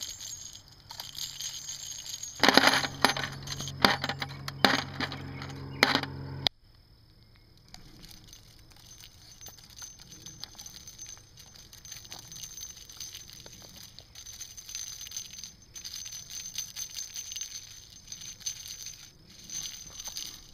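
Spent brass cartridge cases clinking and gravel crunching as a rolling wire-basket brass collector is pushed over them. A loud, busy clatter runs for the first several seconds, then cuts off abruptly about six and a half seconds in to a quieter, lighter clicking.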